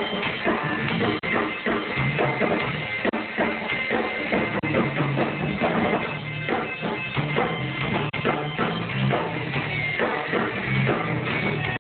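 Live rock band playing an instrumental passage: electric guitar, bass and drum kit together at a steady beat, with no singing.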